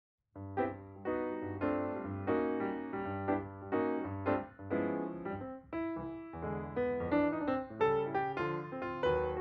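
Background piano music: chords struck about once a second over a low bass line, starting about half a second in.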